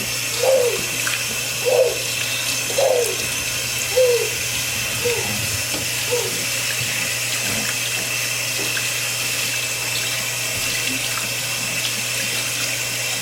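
Tap water running steadily as a puppy is rinsed. A six-week-old Aussiedoodle puppy gives a string of short little grunts, about one a second, that die away about six seconds in.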